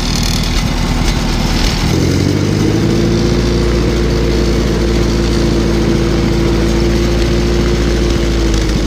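Allis-Chalmers WD-45 tractor engine running steadily at raised throttle. About two seconds in its pitch rises a little and then holds, easing slightly near the end.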